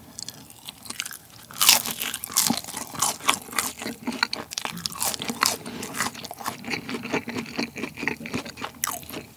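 Close-miked eating of a fried Chicken McNugget: a crisp bite into the breading about one and a half seconds in, then a steady run of crunchy chewing.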